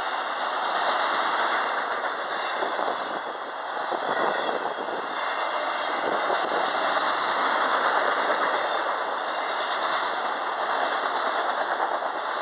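Autorack freight cars of a vehicle train rolling past: a steady rush of steel wheels on rail with a light clickety-clack. The loudness swells and eases every few seconds as cars go by.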